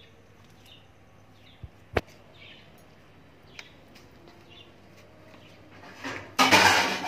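Faint high chirps repeating every half second or so and a single sharp click about two seconds in. Near the end comes loud rustling as hands grab and handle a cloth towel close to the microphone.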